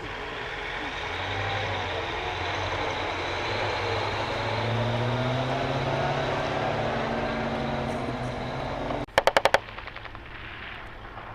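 Heavy military vehicle engine running loudly, its note shifting up and down. About nine seconds in it gives way abruptly to a short burst of about five rapid shots from an automatic weapon.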